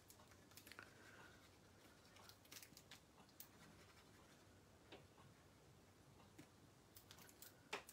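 Near silence, with a few faint, scattered taps and rustles of paper and card being handled.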